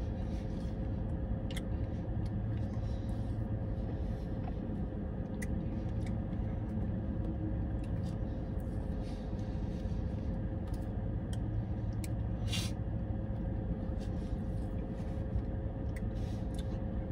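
Steady low hum of a car running, heard inside the cabin, with a faint steady tone in it. Scattered small clicks and scrapes come from a plastic spoon working in a plastic shake cup, one a little louder about twelve and a half seconds in.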